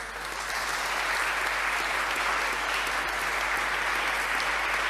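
Audience applauding: many hands clapping, building over the first second and then holding steady.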